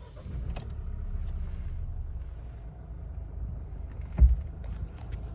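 Mahindra Scorpio Classic's 2.2-litre mHawk diesel engine idling steadily, heard from inside the cabin. A single low thump comes about four seconds in.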